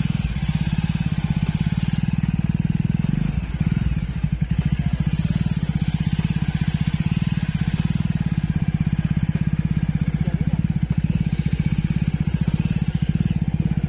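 Motorcycle engine running steadily, heard up close from the bike itself, its firing pulses coming fast and even.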